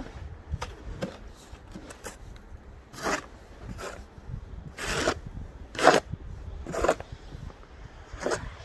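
Packed snow crunching and scraping in four strong strokes about a second apart, with lighter crackles between them.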